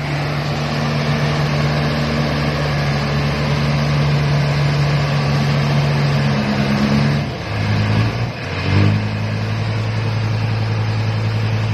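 Truck engine running at a steady speed. About seven seconds in the engine speed drops, wavers briefly, then holds steady at a lower pitch.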